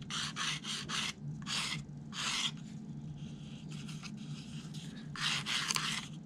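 Fine sandpaper, about 320 grit, on a sanding block rubbed in short strokes along the edge of a plastic C-temp template, taking the little high bumps off. A quick run of strokes, a pause of a few seconds, then more strokes near the end.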